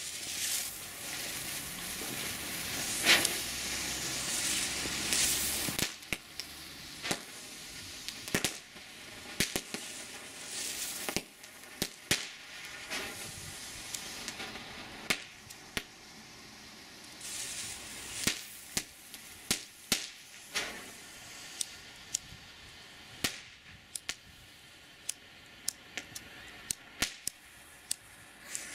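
Nico Knatterblitze crackling ground firework burning: a steady hiss over the first few seconds with one loud crack, then separate sharp crackles, often a second or less apart, over a faint fizz. The crackle is sparse and weak for this kind of firework.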